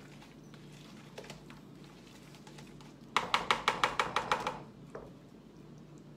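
Hand-twisted spice grinder grinding fresh salt or pepper over a bowl: a quick, even run of about eight gritty clicks about three seconds in, lasting a little over a second.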